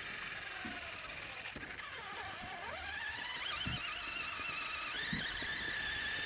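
RC car's motor whining as it drives, the pitch dipping and rising again as it slows and speeds up, then jumping higher about five seconds in. A few soft knocks are mixed in.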